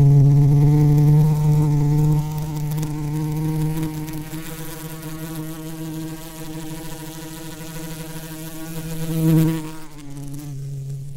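Bee buzzing: a steady, pitched hum that is loudest at the start, fades somewhat, then swells briefly near the end as if the bee flies close past.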